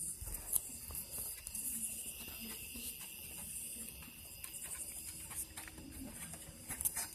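Faint rustling and scattered soft clicks of a small dog moving about close to the phone.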